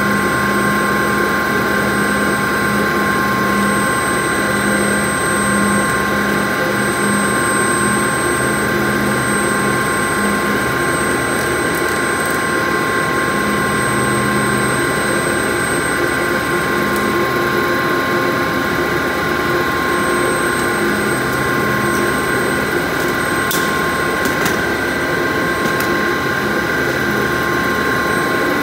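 Steady running noise of an HDPE pipe extrusion and coiling line, with several high steady whines over a lower machine hum. A few sharp clicks come near the end.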